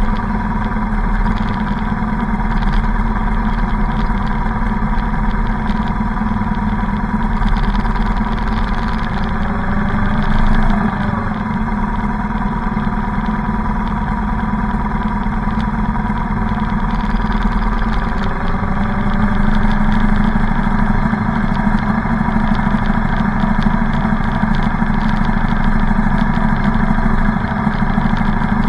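Motorcycle engines running steadily as a column of motorcycles rides at parade pace, heard from one of the bikes. The low engine note strengthens about two-thirds of the way through.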